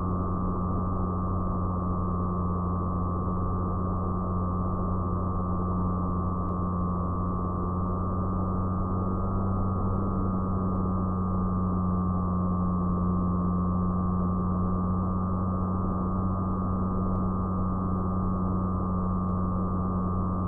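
Fixed-wing FPV model plane's motor and propeller running steadily as heard from the onboard camera: a low hum under a high whine that rises slightly in pitch about halfway through, with rushing airflow noise.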